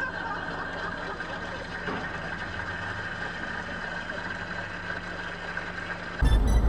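Steady engine and road hum inside a car, picked up by a dashcam. About six seconds in it cuts abruptly to loud music with heavy bass.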